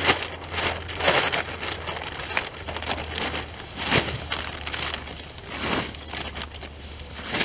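Plastic sacks crinkling and rustling in irregular bursts as soil is moved in and out of them by hand.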